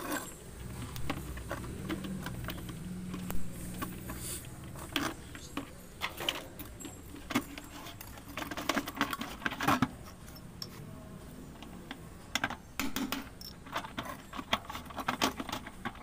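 Plastic parts of a top-load washing machine knocking and clicking as the tub's top ring and cover are handled and lifted off: scattered light clicks and knocks.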